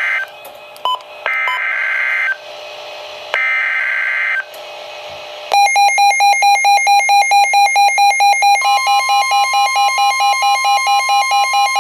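Three short bursts of EAS/SAME digital header tones over radio hiss, each lasting about a second and sounding like a harsh screech. About a second after the last burst, a weather alert radio's alarm starts beeping rapidly, about three loud beeps a second. Partway through, a second, higher tone joins the beeps.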